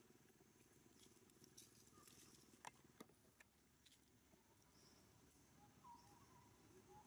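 Near silence: faint outdoor background with a few soft clicks, the loudest about two and a half and three seconds in, and a few faint short chirps near the end.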